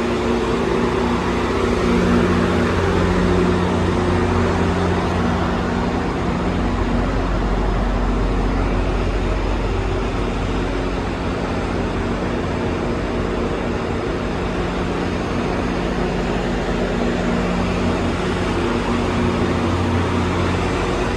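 Train station ambience: a steady low mechanical hum under a constant wash of noise, unchanging throughout.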